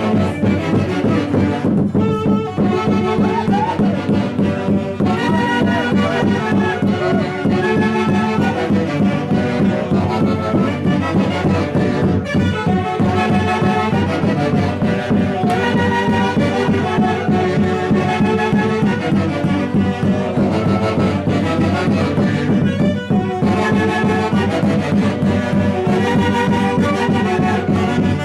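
A live Huancayo band playing Santiago festival music: wind instruments carry the melody over a fast, steady beat.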